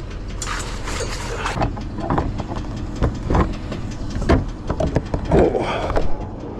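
Lockout tools clicking, knocking and scraping against a truck's door and window as a locksmith works a long-reach tool through a wedged gap, over a steady low rumble.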